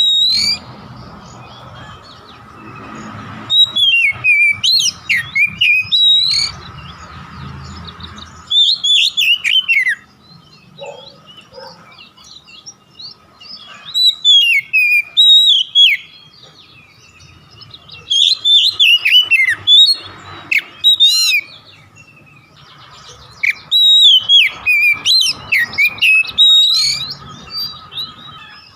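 Oriental magpie-robin (kacer) singing in loud phrases of rapid, mostly falling whistled notes, with pauses of a few seconds between phrases. A faint steady tone runs underneath.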